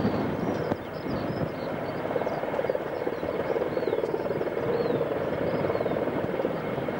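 Several helicopters flying past in formation: a steady, rapid beat of rotor blades and engines that grows slightly louder toward the end.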